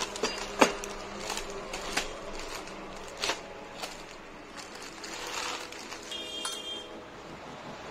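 Clear plastic bag crinkling and crackling as it is handled and pulled off a six-pipe air horn. There are sharp snaps of the plastic about half a second in and again at about three seconds, and a quick run of fine ticks near the end.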